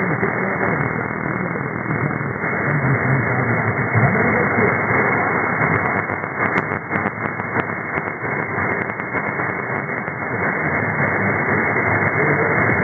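Distant AM radio station on 1650 kHz, received over thousands of kilometres: faint talk-radio speech buried in heavy hiss, narrowed and muffled by the receiver's AM filter. A cluster of static crackles comes between about 6 and 8 seconds in.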